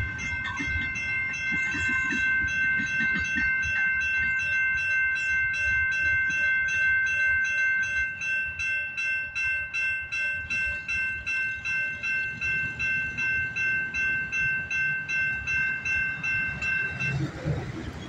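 Railroad grade crossing warning bell ringing steadily at about two strokes a second, over the low rumble of a passing freight train; the bell cuts off suddenly near the end.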